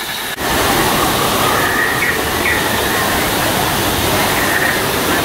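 Steady rush of falling water from waterfalls, starting suddenly about half a second in.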